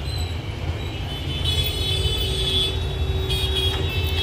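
Steady low rumble of background traffic noise, with several high steady tones like distant vehicle horns coming in about a second and a half in.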